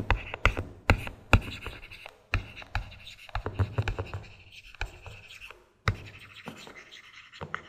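Stylus writing on a tablet: scratching strokes with irregular sharp taps and clicks as each letter is drawn.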